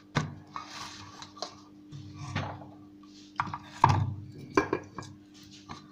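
Kitchenware being handled: a steel mixing bowl and a rolling board knocked and set down on a tabletop, a handful of sharp knocks and clatter with the loudest about four seconds in. A steady low hum runs underneath.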